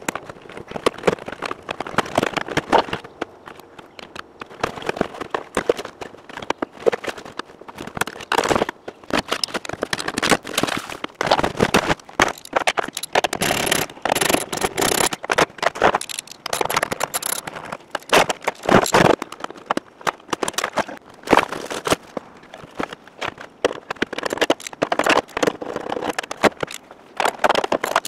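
Hands pulling out a car's trunk trim, carpet and audio wiring: irregular scraping, rustling and crackling with many small clicks and knocks of plastic and cable being handled.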